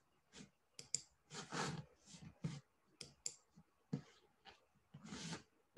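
Faint, irregular clicks and taps from a computer mouse and keyboard, with a couple of longer soft rushes of noise in between.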